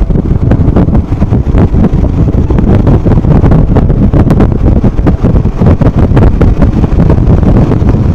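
Wind buffeting the microphone on a moving Royal Enfield Himalayan motorcycle, a loud steady rumble, with the single-cylinder engine running underneath.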